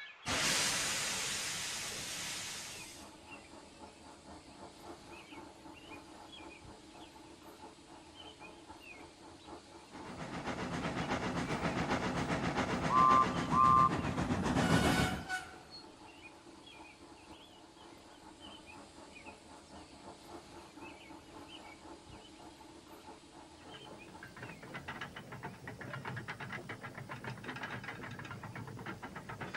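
Steam locomotive sounds: a loud hiss of steam at the start, then quiet running. About ten seconds in comes a second loud rush of steam with two short whistle toots, and near the end a rhythmic chuffing picks up.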